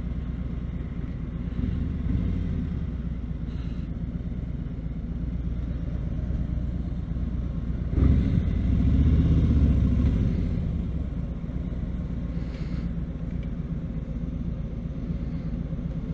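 Harley-Davidson Electra Glide's Milwaukee-Eight V-twin running at low speed as the motorcycle rolls along slowly, its rumble swelling louder for a couple of seconds about eight seconds in.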